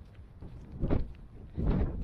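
Footsteps on a grassy path, two steps about a second in and near the end, with wind buffeting the microphone.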